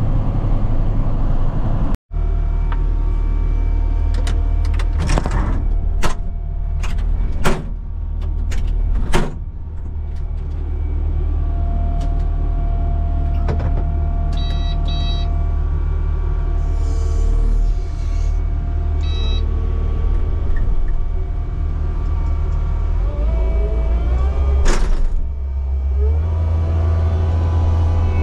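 A heavy diesel engine runs steadily, with sharp knocks and clicks over it and two short runs of electronic beeps midway. The engine speed steps up near the end. The sound cuts out for an instant about two seconds in.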